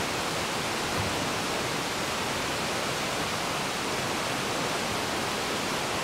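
Steady rush of a mountain stream, an even wash of running water.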